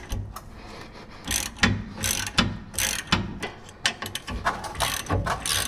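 Hand ratchet clicking in short runs of strokes as it turns the 18 mm bolts that hold the rear brake caliper, loosening them to take the caliper off.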